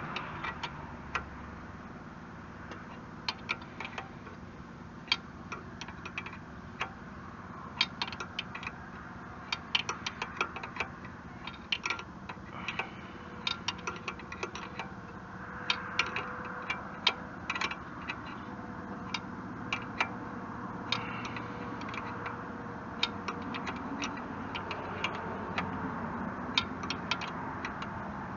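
Scattered sharp metallic clicks and taps from hand-tool work on a backhoe's joystick control linkage, tightening loose nuts, over a steady background noise. The clicks come irregularly, sometimes in quick clusters.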